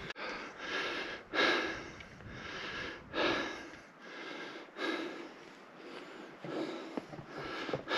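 A man's heavy, laboured breathing, close to the microphone: hard breaths about a second apart, a hiker out of breath while pushing up a steep ascent.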